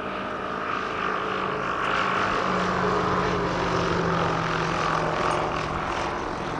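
Piston engine and propeller of a BA Swallow II vintage light monoplane flying past, a steady drone whose pitch drops a little about two seconds in as it passes.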